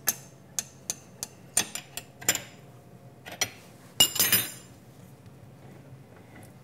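Steel 17 mm wrench clinking on the mill head's mounting bolts: a run of sharp metallic clicks a fraction of a second apart. Then a louder metal clatter about four seconds in, as the wrench is set down on the mill table.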